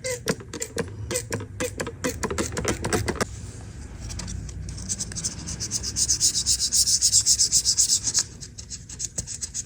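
A razor blade scraping caked grime off an iPad, in a run of short strokes, then a faster, hissier run of scraping that stops suddenly about eight seconds in.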